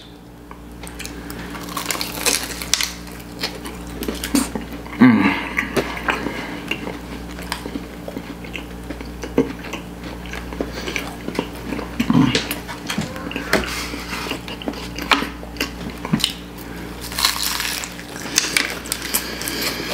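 Close-miked eating: a fried samosa being bitten into and chewed, with many small crackly clicks of pastry and mouth. There are a couple of short hums from the eater, near 5 s and 12 s, over a steady low hum.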